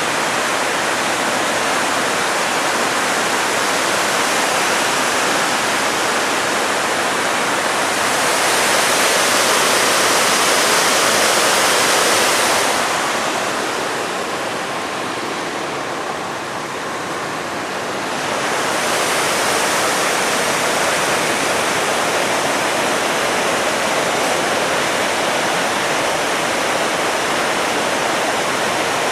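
Steady rush of river water tumbling over a weir, swelling a little and then falling quieter for a few seconds around the middle.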